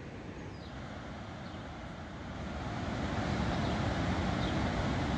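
Steady rumble of traffic on the bridges overhead, growing louder about halfway through.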